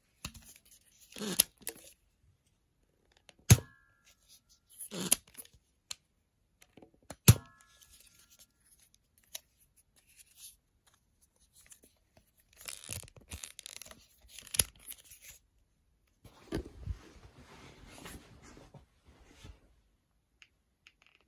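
Small spring-powered plastic toy dart gun being handled and cocked: scraping and clicking of plastic parts, with two sharp snaps about four seconds apart, each followed by a brief spring ring.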